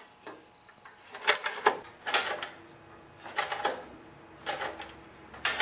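Throttle and governor linkage on a 5 hp Briggs & Stratton engine being worked by hand. The metal rods, levers and spring click and rattle in short bursts about once a second.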